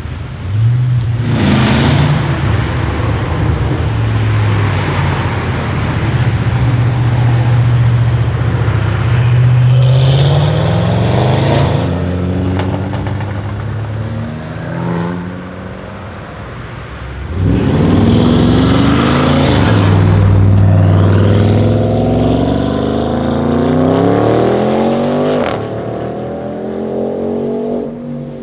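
Audi RS6 C8's twin-turbo 4.0 V8, on an aftermarket exhaust with catless downpipes and the particulate filter deleted, accelerating hard several times, its note rising in pitch with each pull. A single sharp crack near the end.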